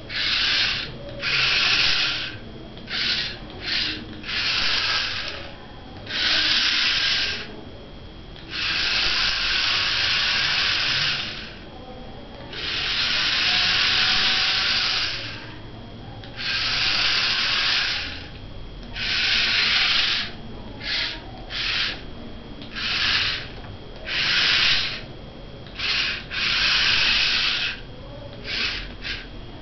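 Small DC gear motors of a homemade four-wheel-drive remote-controlled car, one motor per wheel, whirring in repeated start-stop bursts as it is driven in short moves. The bursts are irregular, some a fraction of a second and some two to three seconds long, with quiet gaps between.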